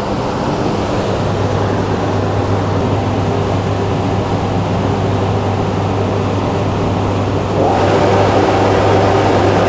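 Dyno-room fans running with a steady low hum, growing louder about three-quarters of the way through.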